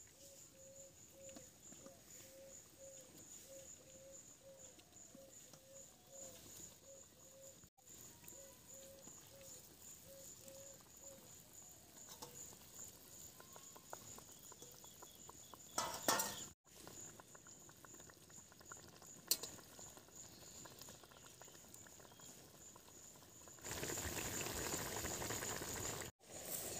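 Fish and taro-leaf curry simmering in a wok over a wood fire: faint, steady bubbling, louder for a couple of seconds near the end.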